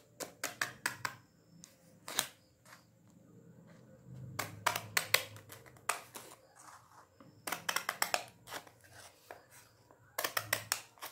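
Scissors snipping through folded craft paper, cutting a fringe of short slits. The snips come in quick runs of clicks, several runs with short pauses between.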